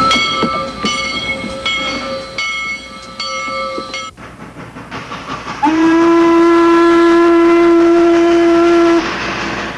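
Train sounds: a bell rings over and over, about two to three strokes a second, then stops, and a train whistle blows one long steady blast of about three seconds.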